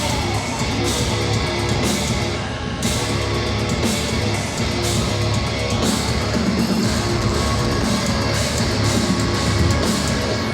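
Live hard rock band playing loud, with distorted electric guitars, bass and drums, as heard from the audience.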